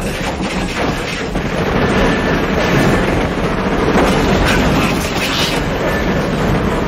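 Subway train running at top speed, a loud, steady rumble and rattle of wheels on the track.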